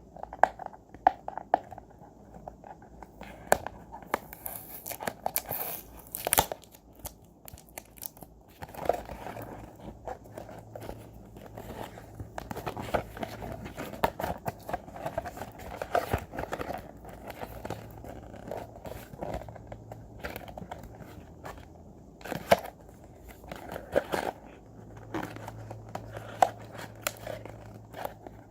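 Toy packaging being handled and opened by hand: plastic and cardboard crinkling and tearing, with scattered sharp clicks and taps.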